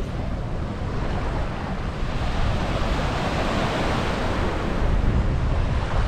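Small waves washing onto a sandy shore, the wash swelling about halfway through, with wind buffeting the microphone as a low rumble.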